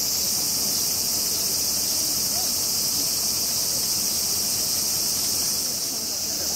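Cicadas droning in a steady, high-pitched chorus.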